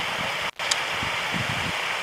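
Rushing river water: a steady hiss of flowing water with irregular low rumbles beneath it. The sound cuts out for an instant about half a second in, then resumes.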